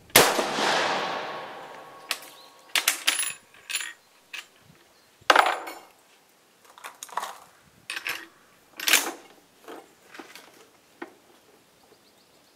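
A single rifle shot from an Austrian M95 carbine firing 8x50mmR reloads, dying away over about two seconds. It is followed by a run of sharp metallic clicks and clacks as the straight-pull bolt is worked, the rifle is loaded single-shot and it is handled back into the rest.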